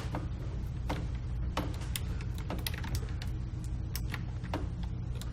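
About ten irregular, sharp clicks of a computer mouse and keyboard over a low steady hum.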